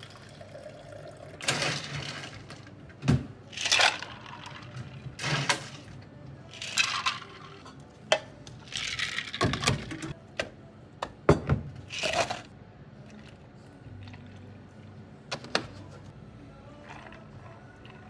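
A bubble tea drink being made up: a run of short pours of liquid into a plastic cup, with several sharp knocks of containers set down on a wooden counter.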